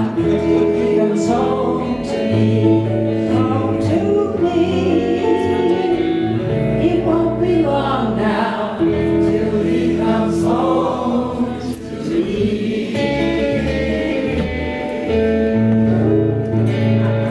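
A live band playing a song: electric bass guitar and two acoustic guitars under sung vocals, a woman and a man singing together.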